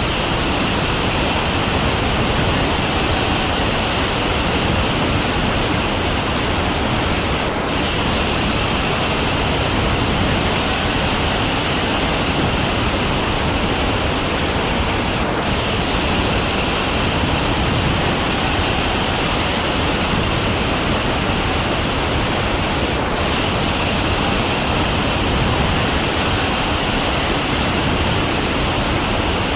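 Big waterfall heard close up: a steady, dense rush of falling water, with a brief dip in the hiss about every eight seconds.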